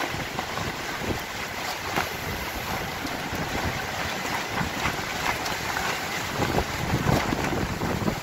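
Strong gusty wind buffeting the microphone, with scattered short knocks and rustles through it.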